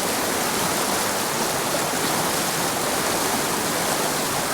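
Small mountain creek rushing and splashing over rocks: a steady, even rush of water.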